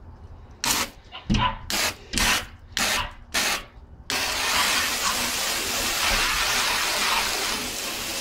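Garden hose spray wand squirting water at a glass door: about six short bursts, then from about four seconds in a steady spray hissing against the glass.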